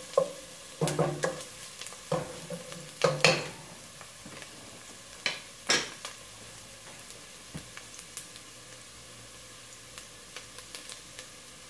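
Chopped garlic and onion sizzling in hot oil in a pot while being sautéed toward golden brown. A utensil scrapes and knocks against the pot several times during the first six seconds; after that there is a steady soft sizzle with a few faint ticks.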